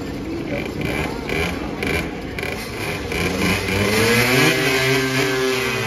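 A pedestrian crossing signal beeps rapidly for the first couple of seconds and then stops. After that a small motorcycle engine revs up, rising in pitch as it pulls away, and is loudest about four to five seconds in.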